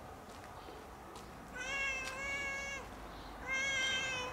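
A tabby-and-white domestic cat meowing twice: two long meows of about a second each, held at an even pitch.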